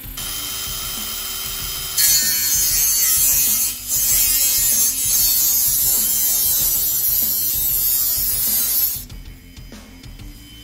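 Handheld cordless rotary power tool cutting through a metal bicycle fender: a steady run for about two seconds, then a loud, high-pitched grinding whine while the cut is made, with a brief dip near four seconds, until it stops about nine seconds in.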